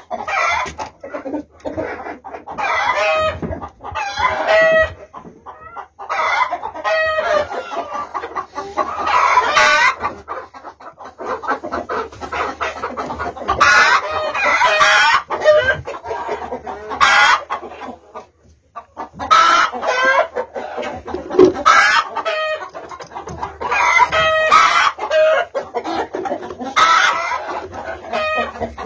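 Chickens clucking and squawking loudly, in bouts of a few seconds with short pauses between them.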